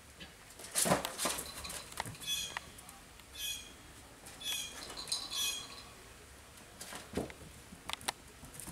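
Puppies playing on a tile floor: claws clicking and scrabbling, toys knocked about, with the loudest knock about a second in and more clicks near the end. Four short high squeaks come between about two and six seconds in.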